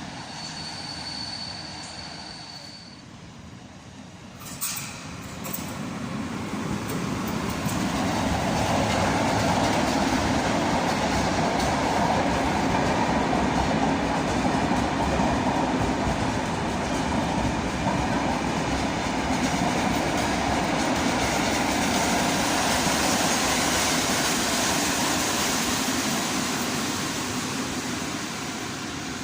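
A train running past at close range: the rumble and wheel noise build up over a few seconds, hold loud and steady for most of the time, then fade near the end. A single sharp knock comes just before the noise builds.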